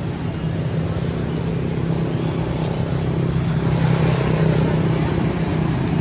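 A motor vehicle's engine running steadily: a low, even hum over road-like noise, growing a little louder about four seconds in.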